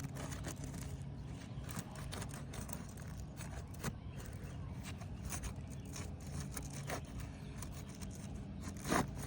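Painter's tool scraping and prying under an asphalt roof shingle to break its adhesive seal strip, with irregular scrapes and clicks.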